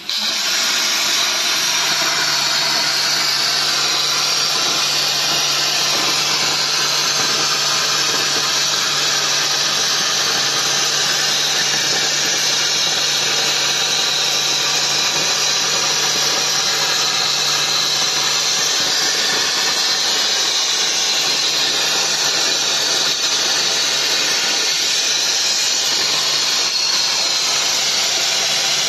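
CNC plasma torch cutting steel plate: the arc starts abruptly and runs with a loud, steady hiss, over a low hum that breaks off for a couple of seconds about two-thirds through.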